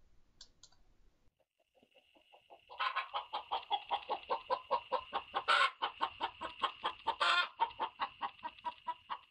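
A hen's egg song, the cackle a laying hen gives after laying: after a few quiet seconds, a fast run of short clucks starts about three seconds in, broken twice by a longer, louder squawk.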